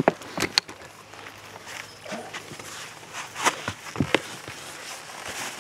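Footsteps and a few irregular knocks, with faint voices in the background.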